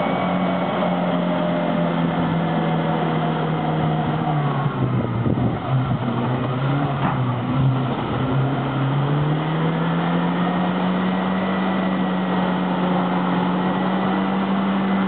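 Off-road SUV engine running under load, its note sagging for a few seconds with some uneven knocks, then climbing back up and holding steady.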